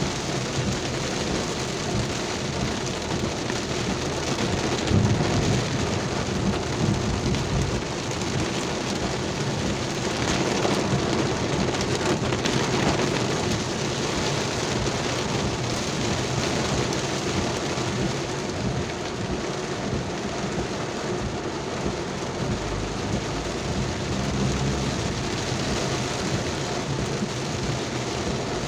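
Heavy rain pouring steadily, with low rumbles swelling about five seconds in and again near the end.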